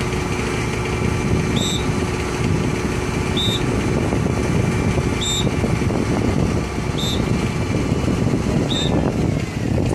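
Fire-department aerial ladder truck's engine running steadily to power the ladder's extension, with a short high electronic beep repeating about every 1.8 seconds.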